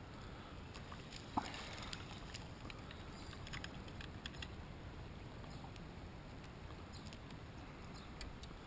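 Quiet handling noise as a fishing rod and a small caught fish are handled: a faint low rumble with scattered light clicks and ticks, and one sharper click about a second and a half in.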